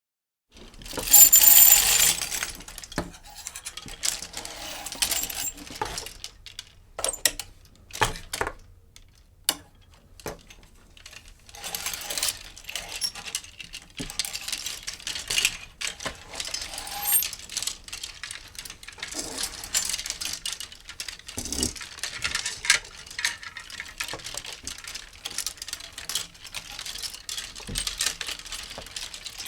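Hangers sliding along a clothes rail in a series of irregular scraping slides, with clinks and rattles between them; the loudest slide comes about a second in.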